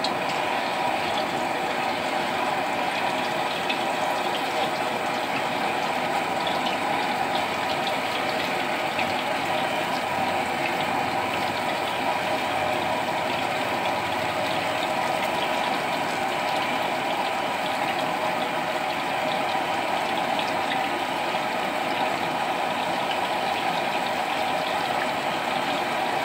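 Thin potato slices deep-frying in hot oil in a steel wok: a steady sizzle that holds even throughout.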